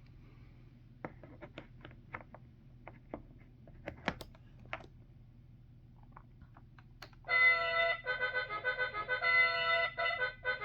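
Scattered light plastic clicks and knocks of toy pieces being handled, then about seven seconds in the Fisher-Price Great Adventures Magic Castle playset plays a short choppy electronic jingle through its small speaker, set off by one of its figures.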